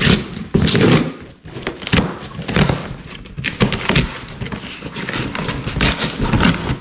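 Cardboard shipping box being torn open by hand: repeated ripping and crackling of cardboard flaps, with a few thumps as the box is handled on a wooden floor.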